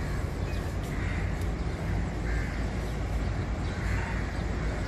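Crows cawing, about three harsh caws a second or so apart, over a steady low outdoor rumble.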